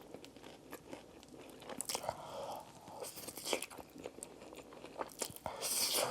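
Close-miked chewing of a chicken nugget eaten with buldak noodles: many small mouth clicks, with louder crunchy bursts about two seconds, three and a half seconds and six seconds in, the last one the loudest.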